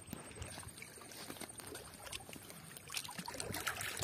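Faint trickling and splashing water with a few light taps.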